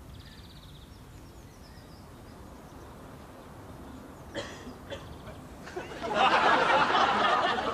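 Audience laughter swells up loudly about six seconds in, over faint outdoor ambience with a bird chirping near the start.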